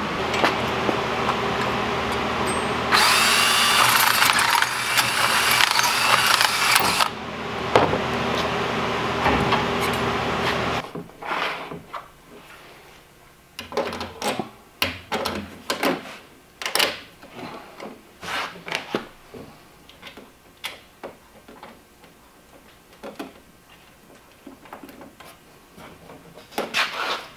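A steady power-tool or machine noise that runs louder and higher-pitched between about three and seven seconds, then cuts off abruptly about eleven seconds in. After that come light metal clinks and taps as perforated galvanized steel strapping and its bolts are fitted around a plastic tank.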